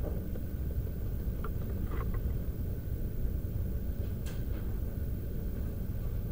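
Steady low rumble of background room noise, with a few faint clicks.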